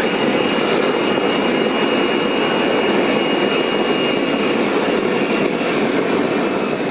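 Homebuilt backyard jet engine running steadily with a loud roar, flame streaming from its exhaust. A thin high whine rides over the roar and fades out about five seconds in.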